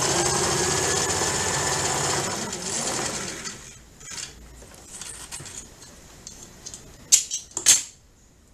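Domestic straight-stitch sewing machine running steadily for about three seconds as it sews a seam in knit fabric, then stopping. Quieter handling noises follow, and two short, sharp sounds come near the end.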